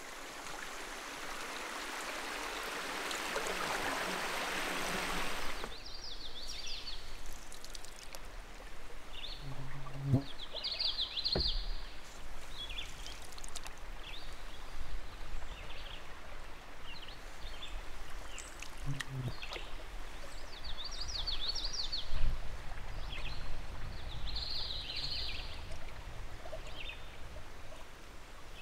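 Running water rushes steadily for about the first six seconds and cuts off suddenly. Then small birds chirp again and again in short high bursts, with a few low knocks in between.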